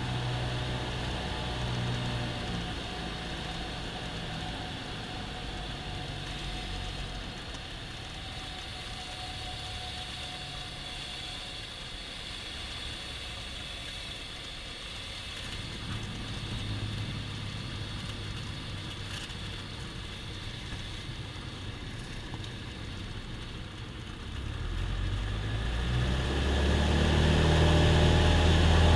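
A Cessna 172M's Lycoming O-320 four-cylinder engine and propeller, heard from inside the cockpit and throttled back to low power for the landing. About 24 seconds in, power comes up and the engine grows steadily louder and deeper.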